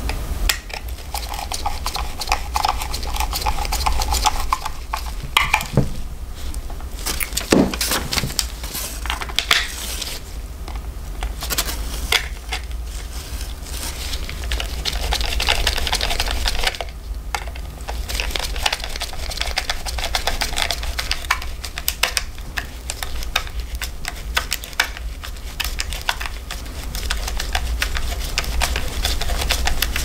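Screwdriver turning screws in the housing of a 1950s Wahl barber hair clipper while it is handled, giving irregular small metal-on-metal clicks and scrapes, with a steady low hum underneath.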